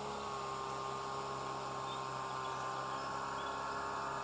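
Boat outboard motor running steadily, its hum sinking slowly in pitch.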